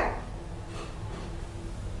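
A pause with no speech: faint steady hum and room tone.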